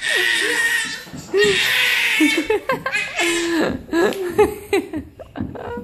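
Small children laughing and giggling: two long breathy laughs in the first half, then short high-pitched squeals and voice sounds.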